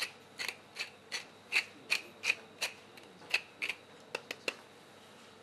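Tall wooden pepper mill twisted by hand to grind pepper over meat: a rasping crunch at each twist, about two or three a second for nearly four seconds, then a few lighter clicks.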